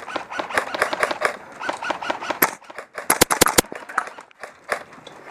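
Gas blowback airsoft rifle firing a quick burst of about five sharp shots a little over three seconds in, after a run of lighter, regular knocks.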